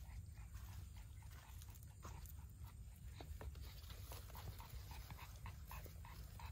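Faint animal calls, a quick series of short soft notes in the second half, over a steady low rumble.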